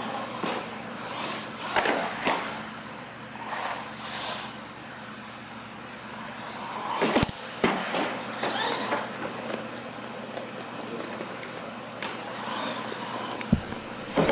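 RC monster trucks driving on a concrete floor, their motors and tyres making a steady noisy running sound. Sharp knocks and clatters come as a truck hits a ramp and tumbles over, the loudest about seven seconds in.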